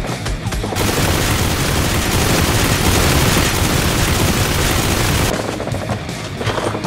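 Automatic gunfire in rapid shots. About a second in it gives way to a loud, dense, unbroken noise lasting about four and a half seconds, and the rapid shots return near the end.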